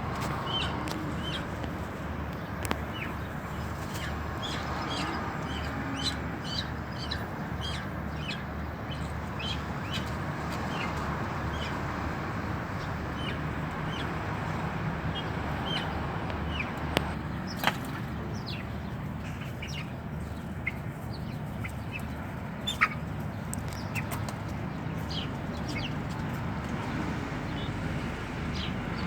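Kept birds chirping: many short, scattered chirps over a steady background noise, with a few sharp clicks.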